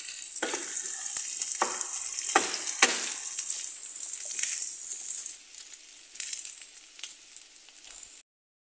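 Mushrooms sizzling as they fry in butter in a pan, with a utensil scraping and knocking against the pan several times in the first three seconds as they are stirred. The sizzle thins out and the sound cuts off suddenly near the end.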